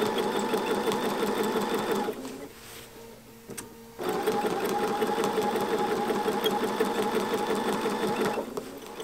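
Sewing machine stitching through a quilt with a walking foot at a steady pace, with a slight squeak from the walking foot, a sign of a spot on the foot that still needs oil. The machine stops about two seconds in, starts again about two seconds later, and eases off near the end.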